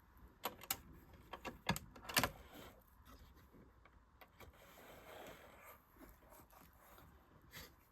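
Scattered light clicks and knocks of hands handling a sewing machine and its thread, busiest in the first two seconds, with one more small click near the end; the machine is not running.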